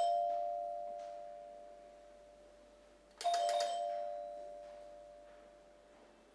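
A doorbell chime rings twice, about three seconds apart. Each ring is a pair of close notes that start sharply and fade slowly over a few seconds.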